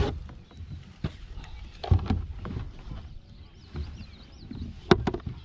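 A few sharp knocks and clicks with low bumps in between, from fishing gear being handled against a plastic kayak while a hook is baited; the loudest knock comes near the end.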